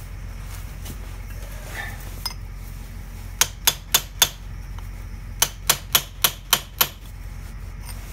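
Hammer tapping a chisel against the steel locking collar of a tractor PTO shaft coupler: sharp metal strikes, about four a second, in two quick runs, four strikes and then six, over a steady low hum.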